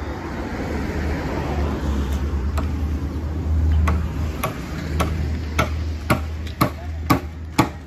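Steady rumble of road traffic; from about halfway, a run of sharp, evenly spaced knocks, about two a second, that get louder.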